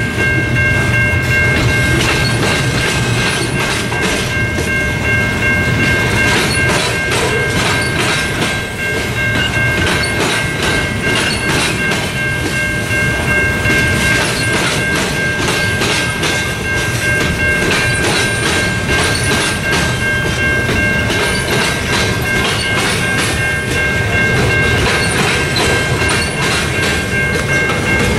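Freight train of gondolas, flatcars and coil cars rolling past, wheels clacking steadily over rail joints and crossing frogs. A steady high ringing tone sits over the rolling noise.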